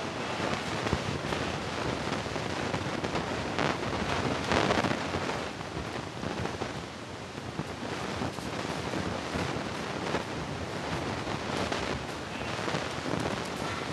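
Steady, noisy gym ambience, with scuffling and a few brief thumps as two men grapple on padded mats.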